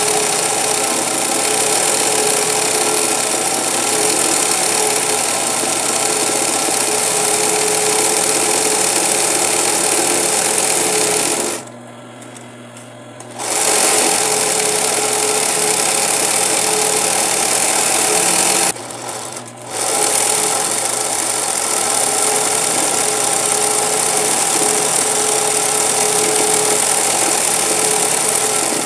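20U industrial zig-zag sewing machine running steadily at speed, zig-zag stitching around the edge of a fabric appliqué. It stops for about two seconds roughly 12 seconds in, stops again briefly about 19 seconds in, and stops at the end.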